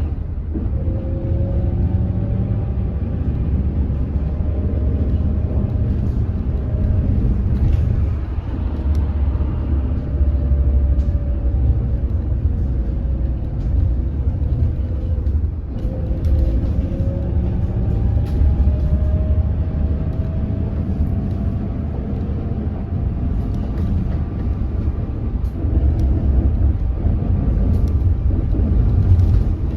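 Hydrogen fuel-cell bus under way, heard from inside: a heavy low road rumble with the electric drive motor's whine gliding slowly up and down in pitch as the bus speeds up and slows. This whine is the odd motor noise this bus is known for.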